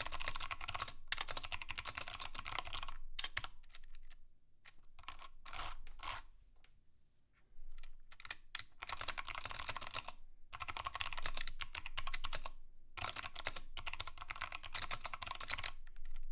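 Mechanical keyboard being typed on in fast runs of clicky keystrokes, with a lull of a few scattered single keystrokes in the first half.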